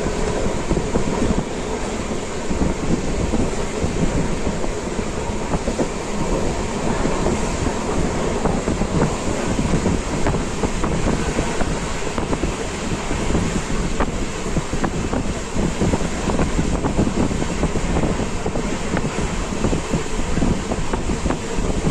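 Express passenger train running along the line: a steady rumble and rattle from the moving coach, with many short irregular clatters from the wheels on the track.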